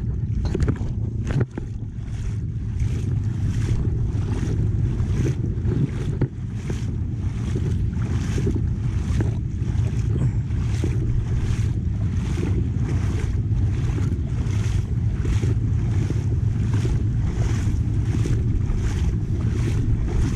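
Footsteps wading through shallow seawater, a splash about twice a second at a steady walking pace, over a steady rumble of wind on the microphone.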